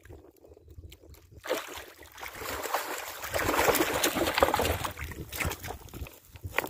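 A hooked Asian carp thrashing and splashing in shallow water at the edge of the bank. The splashing starts about a second and a half in, is loudest in the middle, then dies down.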